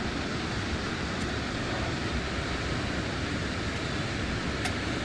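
A large waterfall rushing steadily: a constant, unbroken wash of falling water.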